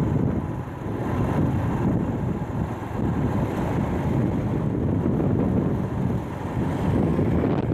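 Wind buffeting the microphone of a camera moving along a street, a steady low rumble over road and vehicle noise.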